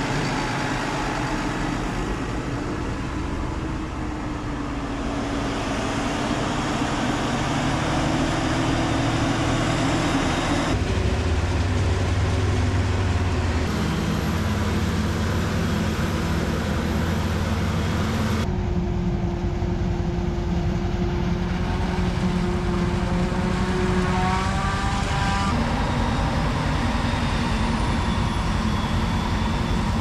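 Heavy farm machinery running steadily: a self-propelled forage harvester chopping corn silage and blowing it into a wagon, with tractors pulling carts alongside. The engine drone and hum shift abruptly three times as the scene cuts.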